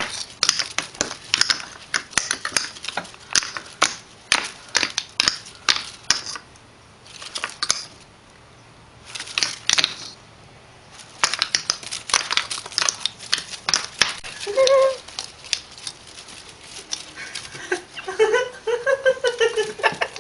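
Rapid, irregular clicking and tapping as a hand puppet and a kitten scuffle on a wooden floor. A short pitched cry comes about three-quarters of the way through, and a string of short cries near the end.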